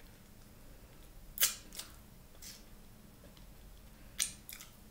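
Wet mouth smacks as fingers are licked and sucked clean of barbecue sauce: a pair of short, sharp smacks about a second and a half in and another pair near the end.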